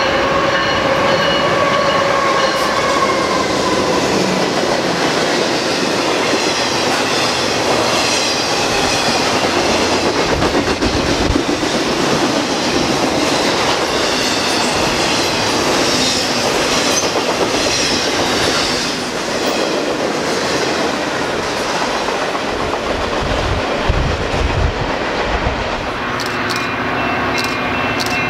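BNSF intermodal freight train passing close by: the diesel locomotives go past with a steady whine that fades within the first few seconds. Then a long run of flatcars carrying highway trailers rumbles and clatters over the rails, with some high wheel squeal midway.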